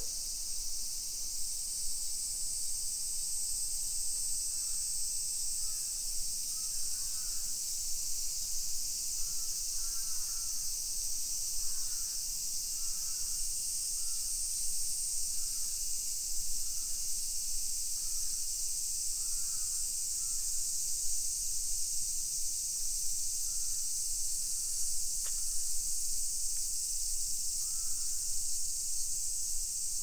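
Summer cicada chorus, a steady high-pitched drone that never lets up. Faint short bird calls come through now and then.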